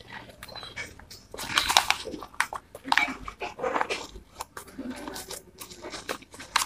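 Satin ribbon and wrapping paper rustling and crinkling under the fingers as a bow is tied on a gift box, in short, irregular crackles, loudest about two seconds in.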